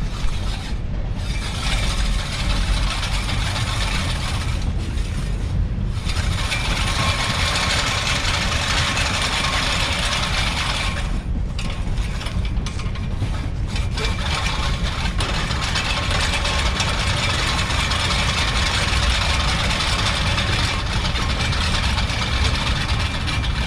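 Push reel mower with freshly sharpened blades whirring as the spinning reel cuts grass, dropping out briefly a few times as the mower pauses. A steady low rumble runs underneath.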